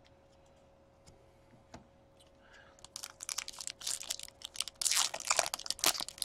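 A foil trading-card pack being torn open, its wrapper crackling and crinkling from about three seconds in. Before that there are only a few faint clicks of cards being handled.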